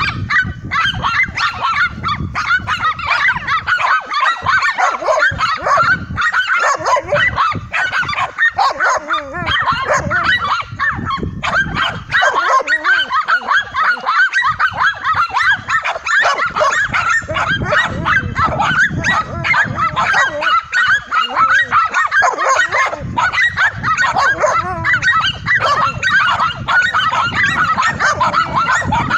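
A pack of dogs barking nonstop in a fast, overlapping chorus as they hold a tegu lizard at bay.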